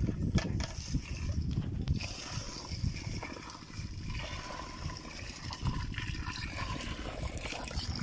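Water running from a PVC pipe tap in a thin stream into a plastic bucket, splashing into the water already in it; a few knocks early on as the tap and bucket are handled.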